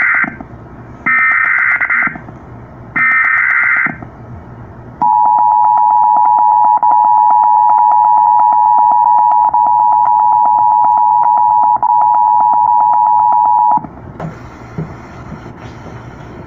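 Emergency Alert System activation on FM radio: three short bursts of SAME header data tones, each about a second long, the first already under way, then a loud, steady two-tone attention signal that sounds for about nine seconds and cuts off abruptly. The tones announce a National Weather Service severe thunderstorm warning.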